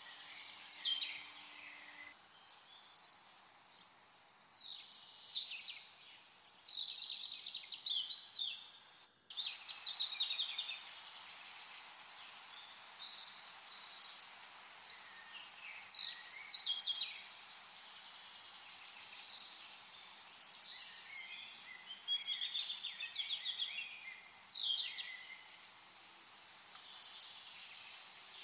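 Small birds chirping and twittering in repeated bursts of quick, high, sweeping notes over a steady background hiss.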